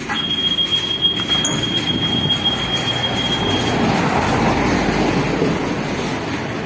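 A steady high-pitched tone lasts nearly four seconds over street noise. A passing minibus then swells the traffic noise, which eases off near the end.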